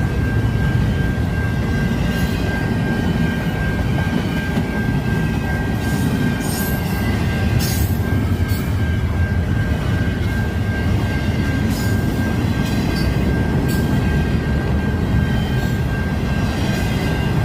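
Train rolling past with a steady low rumble of wheels on rail and a steady high-pitched tone over it. Short clicks come now and then in the middle stretch.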